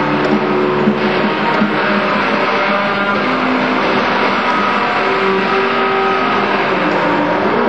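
Live improvised band music: several instruments hold and change notes over a dense, noisy wash of sound at a steady loud level.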